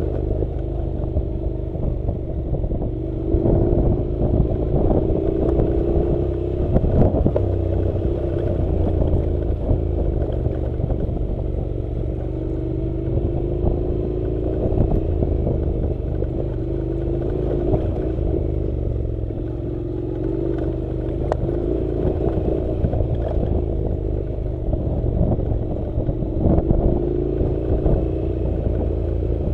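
A Honda NC700 motorcycle's parallel-twin engine pulls steadily at low revs, its pitch drifting gently up and down, over rumble from a rough dirt road. Scattered clatter and knocks come from the bike riding over the uneven track.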